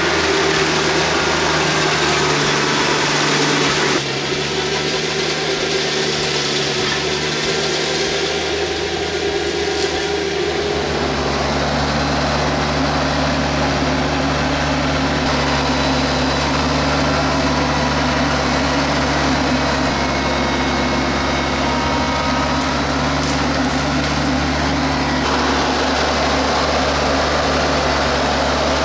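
Compact tractor diesel engine running steadily under work. The engine note and the noise above it change abruptly about four and ten seconds in.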